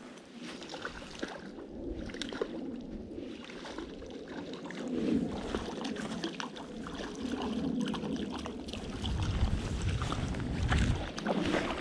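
Water splashing and swishing as a hooked brown trout is played and drawn in through a shallow creek, with many small clicks from a spinning reel being cranked. A low rumble on the microphone near the end.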